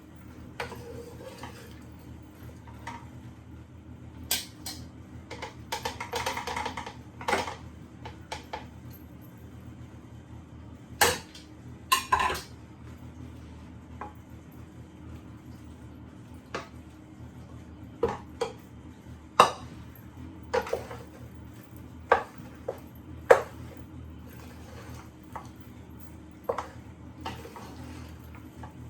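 A cooking utensil clinking, knocking and scraping against a pan as chicken and pasta are tossed together, in irregular strikes with a scraping stretch early on and the loudest knocks in the second half, over a steady low hum.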